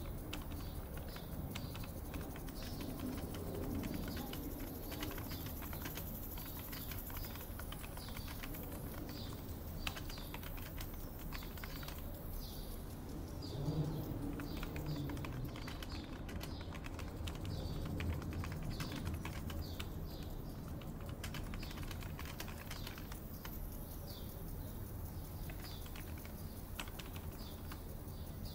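Computer keyboard typing in irregular runs of keystrokes, over birds chirping and a steady low background rumble.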